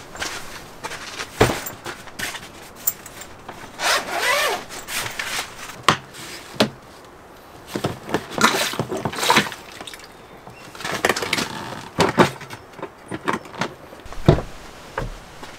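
Plastic portable camping toilet being handled: its lid and fittings rubbing, scraping and clicking in short separate bouts, with a few sharp knocks and a heavier thump near the end.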